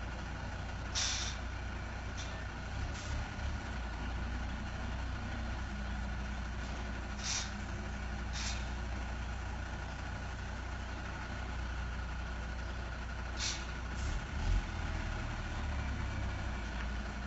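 Heavy tanker truck's diesel engine running low and steady while it manoeuvres slowly, with several short, sharp air-brake hisses.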